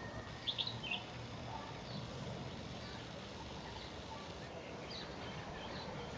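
Steady outdoor background noise with a few short, faint bird chirps, the clearest about half a second in.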